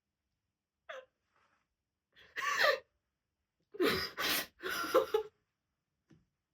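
A woman crying: a short catch of breath about a second in, then a run of loud, gasping sobs, after which she falls quiet.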